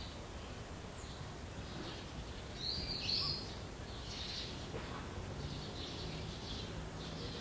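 Small birds chirping repeatedly over a steady background hiss of location ambience, the loudest chirps about three seconds in.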